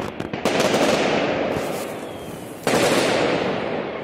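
Fireworks going off: rapid crackling bangs, with two big bursts about half a second and nearly three seconds in, each dying away slowly.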